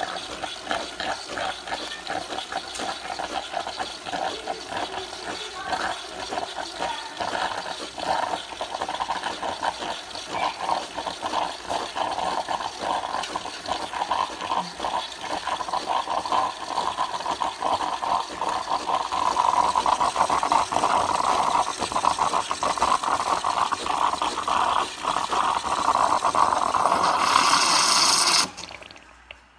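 De'Longhi Nespresso Lattissima capsule machine brewing an espresso: the pump runs with a gurgling, spluttering flow of coffee into the cup, growing louder in the last third, then stops abruptly near the end.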